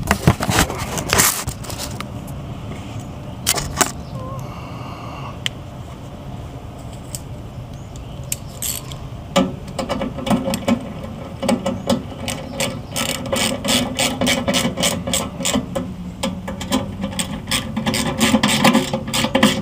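Ratchet wrench clicking as the motor-mount bolts on a blower housing are turned. A few scattered metal knocks come first, then from about halfway a rapid, steady run of clicks.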